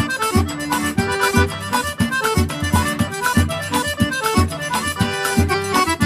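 Background music with a steady beat of about two strokes a second under held melodic notes.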